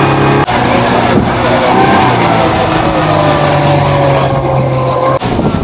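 Tour boat's engine running loudly at a steady pitch while the boat is underway, with a fainter tone sliding slowly downward through the middle.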